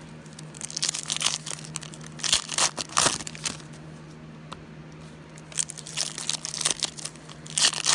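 Foil football-card pack wrappers crinkling and tearing as they are opened by hand, in two spells of crackling: one in the first three seconds and another over the last two and a half.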